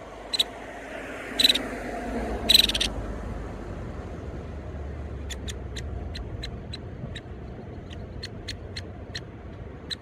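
Nuttall's woodpecker nestling calling from its nest cavity: three short, high calls in the first three seconds, the last the longest, then a run of short, sharp high notes about two a second.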